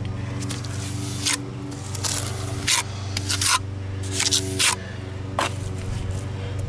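Mason's trowel scraping fast-drying cement onto a brick patch in a foundation wall: about seven short scrapes, irregularly spaced.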